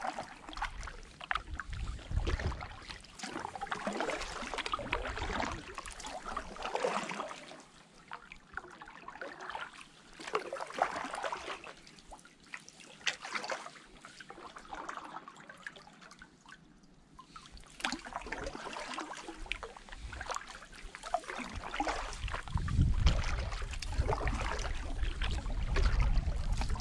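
Kayak paddle strokes: water splashing and dripping off the paddle blades about once a second, easing off in a quieter lull midway. Wind buffets the microphone toward the end.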